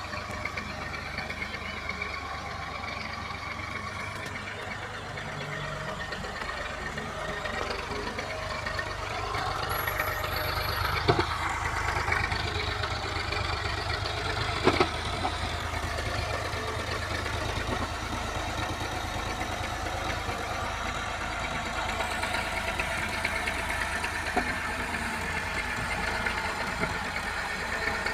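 Massey Ferguson 240 tractor's three-cylinder diesel engine running steadily while pulling a heavily loaded trolley, getting louder from about nine seconds in. Two brief sharp knocks sound near the middle.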